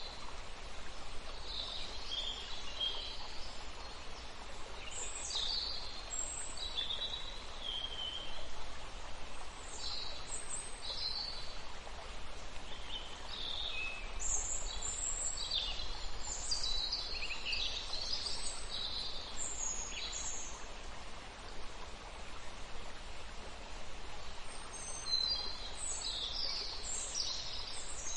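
Birds chirping and calling in short, scattered phrases over a steady background hiss.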